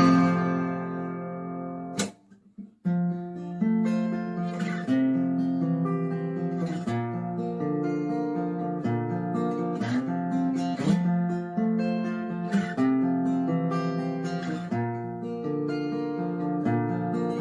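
Steel-string acoustic guitar: a chord rings out and fades, then a short click and a brief pause about two seconds in. After the pause a picked guitar line starts, the notes changing one after another as the intro of the next song.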